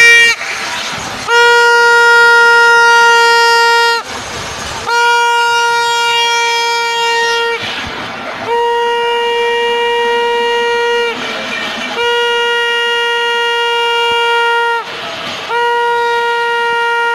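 Conch shell (shankh) blown in long, steady-pitched blasts, about five of them, each lasting roughly three seconds, with a short pause for breath between them.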